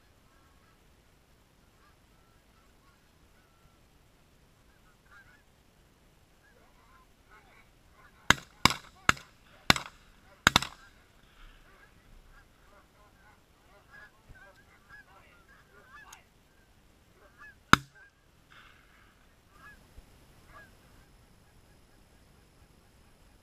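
Canada geese honking as a flock works over the decoys, interrupted by a rapid volley of five shotgun blasts in about two seconds, starting about a third of the way in. A single further shot follows about seven seconds later, while the geese keep honking.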